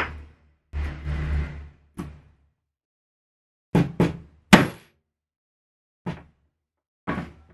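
A mallet strikes a metal rivet-setting punch to set a rivet through a leather strap on a wooden board. There are three sharp knocks in quick succession about halfway, the last the loudest, then two single knocks later, after duller handling knocks in the first two seconds.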